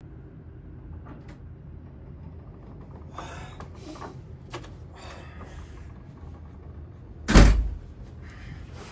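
A room door being handled and opened, with a few sharp clicks and rustles, then shutting with a loud, deep thud about seven seconds in, over a low steady room hum.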